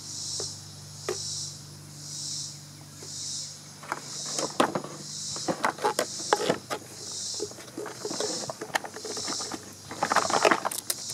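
Clicks, knocks and rattles of an upright vacuum cleaner's plastic body and corrugated hose being handled and turned over, against insects chirping in a steady pulse, about three every two seconds.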